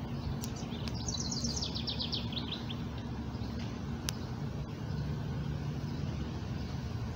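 A songbird sings one quick run of repeated high notes that steps down in pitch, about a second in, over a steady low background rumble.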